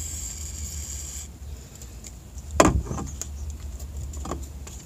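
Aerosol spray can hissing briefly as cleaner is sprayed onto the small parts of a neutral safety switch. About halfway through comes a sharp knock, the loudest sound, followed by a couple of lighter knocks and clunks.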